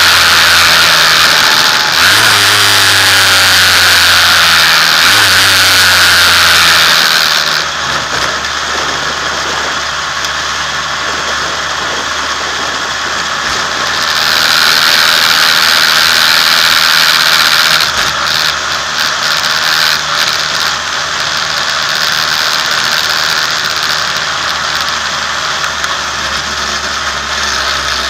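F2000 formula car's engine heard from onboard, running at a steady high note for the first seven seconds or so, easing off, picking up again for a few seconds, then running lower and less even toward the end as the car slows. The revs are held to about 5000 rpm by an elusive glitch.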